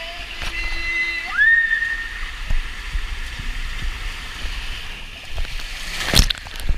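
Water sloshing and gurgling in a swimming pool, with a few short rising pitched calls in the first two seconds and one sharp hit about six seconds in.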